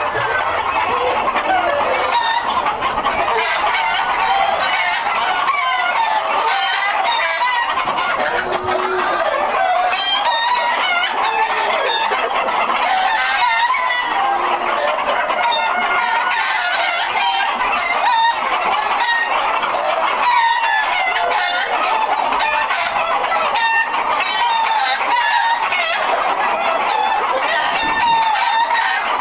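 A large flock of White Leghorn chickens, hens and roosters together, clucking and cackling in a steady, dense chorus of overlapping calls, with roosters crowing now and then.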